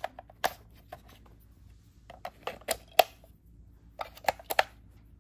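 Sharp plastic clicks and taps from handling the Contixo F19 drone's remote controller, with its battery compartment open, coming in small clusters near the start, from about two to three seconds in, and again about four seconds in.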